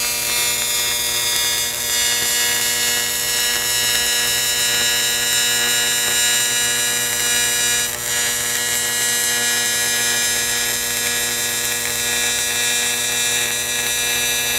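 AC stick-welding arc from a Miller Dynasty 280DX set to 120 Hz AC, burning a 3/32-inch 7018 electrode at about 90 A. The arc gives a loud, steady buzz pitched at the 120 Hz AC frequency, over a crackling hiss.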